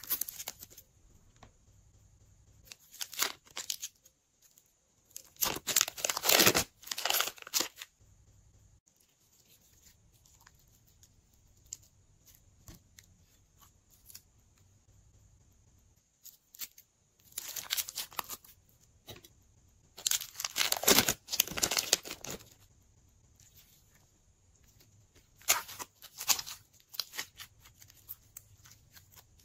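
Thin plastic piping bags filled with glitter slime crinkling and rustling as they are snipped open with scissors and squeezed. The sound comes in several loud bursts separated by quieter stretches.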